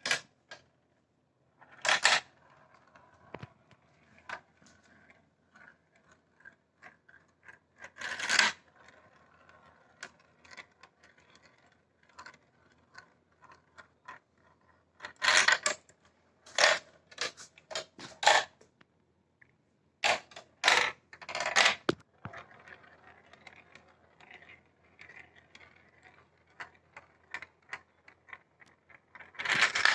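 Marbles running down a plastic marble-run track: a faint continuous rolling rattle, broken every few seconds by louder sharp clacks as they drop between pieces and strike the track.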